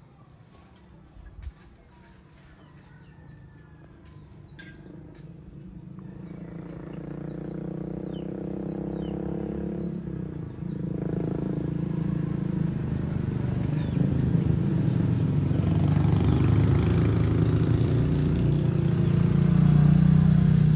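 Birds chirping and a steady high insect whine, then from about six seconds in a motor vehicle's engine grows steadily louder as it approaches until it is the loudest sound.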